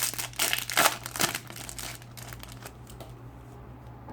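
Foil wrapper of a FIFA 365 trading-card packet crinkling as it is torn open: a burst of rustling in the first second and a half, then a few lighter rustles and taps.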